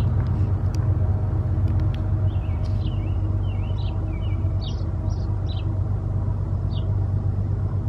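A steady low engine rumble throughout, with a few short, high bird chirps over it.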